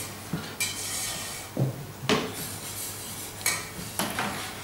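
Metal cooking utensils clinking and knocking against pots and pans, about six sharp strikes spread unevenly, over a steady low hum.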